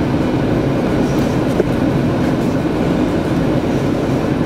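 Car cabin noise while driving: a steady low rumble of the engine and tyres on the road.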